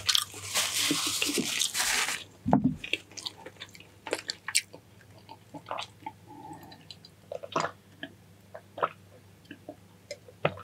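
Close-up eating sounds: a loud rushing noise for about two seconds at the start, a low thump, then scattered wet clicks and smacks of chewing.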